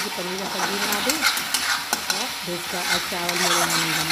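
Thick masala sizzling as it fries in a steel kadai, with a metal spatula scraping and clicking against the pan as it is stirred. A held, pitched voice-like sound runs faintly underneath.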